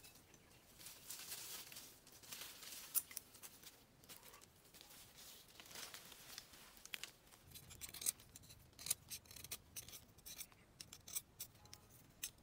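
Rustling in dry leaves and brush, then from about halfway a quick run of small sharp snicks: a knife cutting and shaving a green stick.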